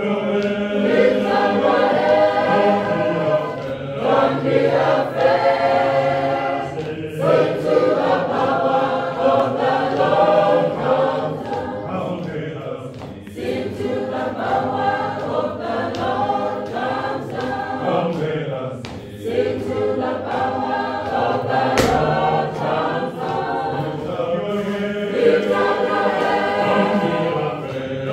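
Church choir singing a processional march, the many voices running in long phrases with brief breaks between them.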